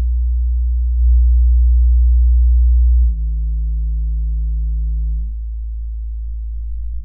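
Low bass test tones played through a compact powered computer speaker, each a steady pure tone, stepping to a new tone about every two seconds, with faint overtones above them.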